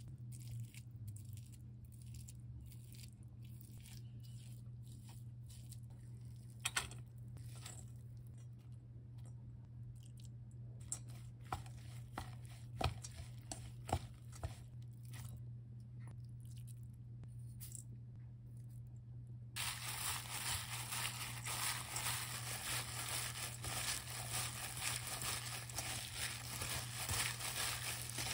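Chopsticks clicking now and then against a stainless steel bowl as hijiki seaweed is tossed. About two-thirds of the way through, this gives way to continuous crinkling and squishing from a plastic-gloved hand mixing the hijiki with crumbled tofu. A low steady hum runs underneath.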